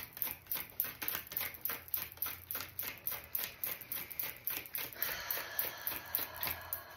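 A deck of oracle cards being shuffled overhand by hand: a rapid, even patter of cards flicking against each other, about four a second.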